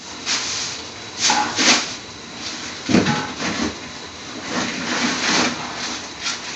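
Cooking utensil scraping and knocking in a pan of cooked spinach in irregular strokes, over a steady hiss.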